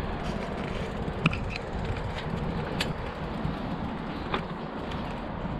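Bicycle tyres rolling over the steel-mesh deck of a footbridge: a steady low rumble and rattle, with a few sharp clanks about one, three and four and a half seconds in.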